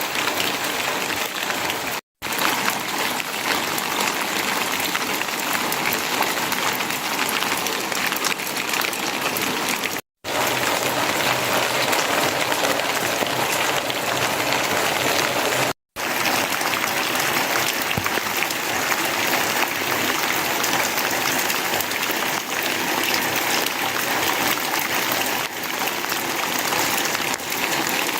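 Steady rain falling, an even hiss of many drops, cut off for a split second three times.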